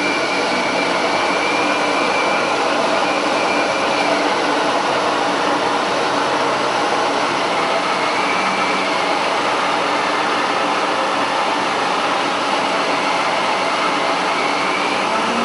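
Steady, loud rushing noise of running equipment, with a faint high whine that comes and goes.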